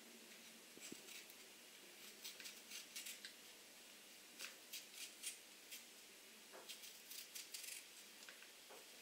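Small knife cutting a raw radish held in the fingers: faint, crisp clicks, irregular and often a few close together.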